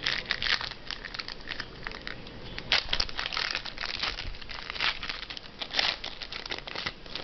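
A trading-card pack's plastic wrapper crinkling and crackling as it is handled and torn open.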